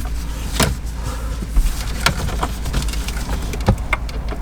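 Plastic wiring-harness connectors and loose wires being handled and tried against their sockets: scattered clicks and rattles, with a few sharper knocks about half a second, two seconds and three and a half seconds in, over a steady low hum.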